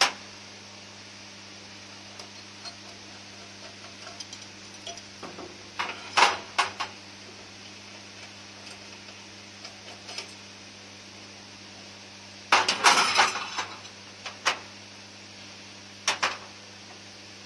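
Metal clinks and clatter of steel common rail injectors and fittings being handled and set down on a metal test bench, with a dense burst of clatter about two-thirds through. A steady low electrical hum runs underneath.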